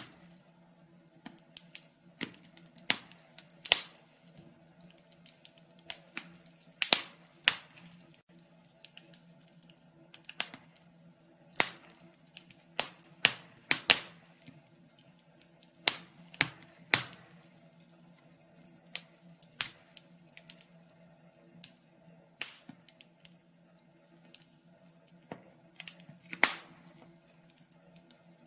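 Wood fire crackling: irregular sharp pops and snaps, sometimes several close together, over a faint steady low hum.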